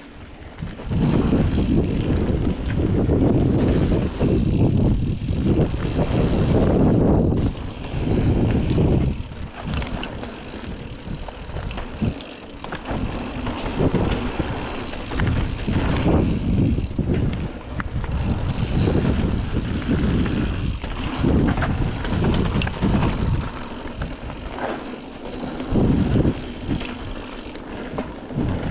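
Mountain bike descending a dirt trail at speed: wind buffeting the microphone and tyres rumbling over the dirt, with scattered clicks and rattles from the bike. The rumble surges about a second in and rises and falls over the bumps.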